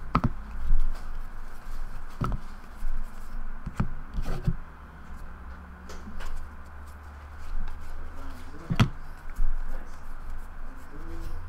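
Trading cards being handled on a table: a stack set down and cards thumbed through by hand, with about half a dozen sharp taps and card snaps spread through the handling.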